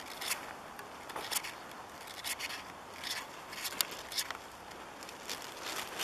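Footsteps on old granular spring snow and moss: irregular, short scraping crunches about every half second to second.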